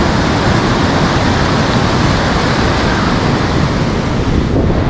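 Ocean surf breaking on the beach: a steady, loud rushing noise.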